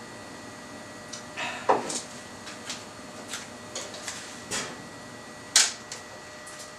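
A string of small knocks and clatters of objects being handled on a workbench, over a steady electrical hum, with a sharper click about five and a half seconds in as shop lights are switched off.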